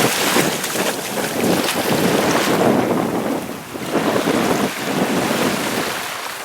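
Wind buffeting the microphone over the wash of sea waves, rising and falling in surges.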